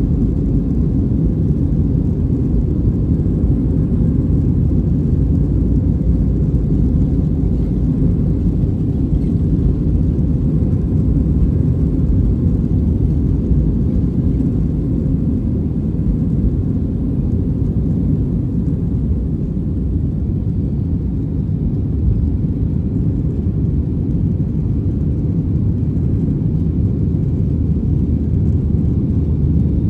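Boeing 737-800 at takeoff thrust, heard inside the cabin over the wing: a steady, loud, low rumble of the CFM56 engines and the runway roll as the jet accelerates and lifts off. The rumble eases slightly about two-thirds of the way through.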